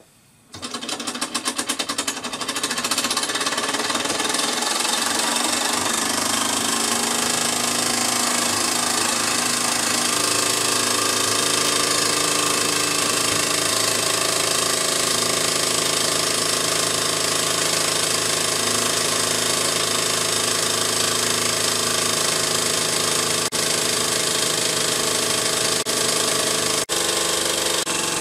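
Wilesco D4 toy steam engine started with a flick of its flywheel. Its strokes speed up over the first couple of seconds and settle into a loud, fast, steady running sound at about 8,500 rpm.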